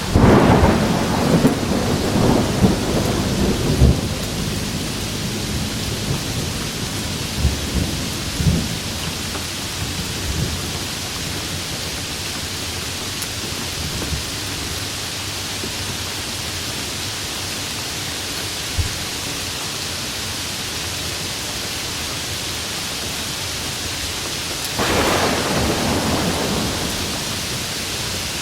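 Steady rain with a loud clap of thunder right at the start, crackling and rumbling away over about four seconds, then a second, softer roll of thunder about twenty-five seconds in.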